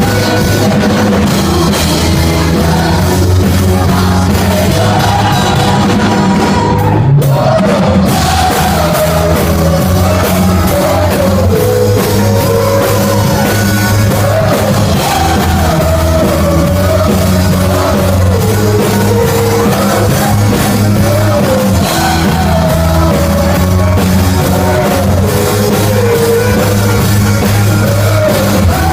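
Rock worship song: a full band with drum kit plays under a lead melody, with singing. The cymbals and high end drop out briefly about seven seconds in, then the band comes back in.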